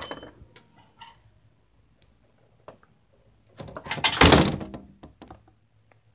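A door being shut: a thunk at the start and a few light knocks, then a louder scraping rush lasting about a second, about four seconds in.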